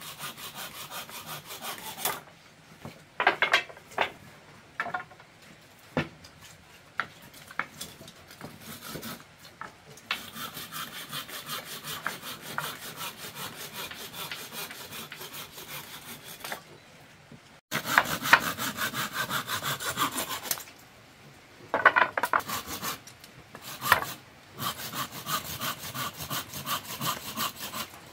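A hand saw cutting in several bursts of quick back-and-forth strokes, with a few sharp knocks in the pauses between.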